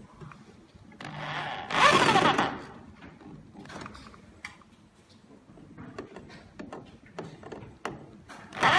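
Power drill running in a short burst a second or so in, with scattered clicks and knocks between, then starting again near the end.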